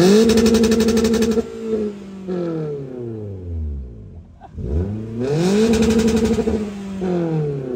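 Car engine free-revved twice while parked. Each time the pitch climbs fast, holds high for about a second and a half, then falls back slowly toward idle.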